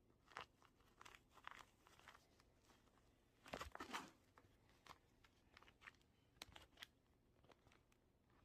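Faint, scattered crinkling and crunching clicks, with a louder cluster about three and a half seconds in.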